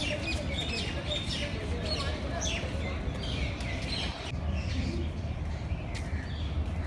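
Many birds chirping together, with quick short calls overlapping throughout, over a steady low rumble.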